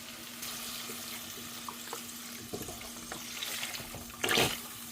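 Chicken stock poured into a hot pot of sautéed onion, garlic and seasoning: a steady rush of liquid hitting the pot with some sizzle, loudest about four seconds in.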